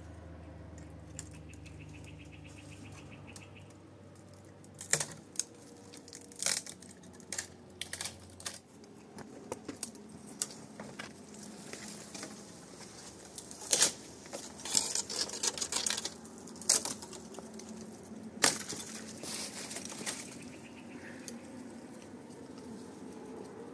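Irregular sharp clicks and snaps with some rustling, thickest in the middle and loudest around two sharp knocks. An insect chirps in pulses over a low hum in the first few seconds.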